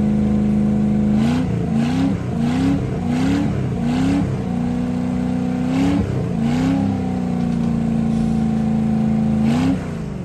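Freshly overhauled 7.4 L (454) big-block V8 marine engine running on a test stand, exhausting through water-spraying wet exhaust hoses. It holds a steady speed, is blipped five times in quick succession, twice more a couple of seconds later and once near the end, after which the revs fall away.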